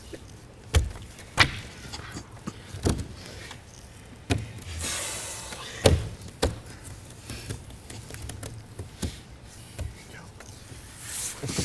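Irregular sharp knocks and taps, about a dozen, with a soft hiss about five seconds in.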